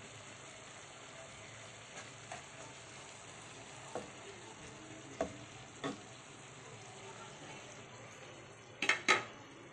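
Cabbage, carrots and ground meat sizzling steadily in a skillet while a spatula stirs them, knocking against the pan a few times, with two louder knocks in quick succession near the end.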